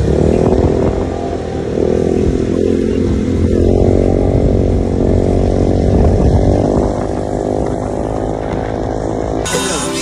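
Motorcycle engine running under way, its note rising and falling with speed. It cuts off abruptly near the end.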